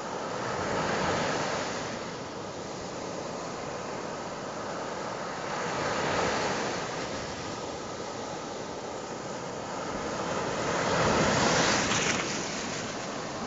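Sea surf breaking close by and foam washing up the sand, a steady rushing that swells with each of three waves, the last and loudest near the end.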